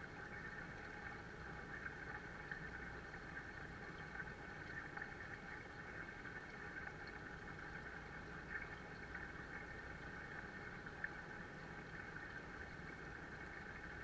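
Water from a small waterfall pouring steadily into a koi pond, a constant splashing rush with a few small bubbly pops.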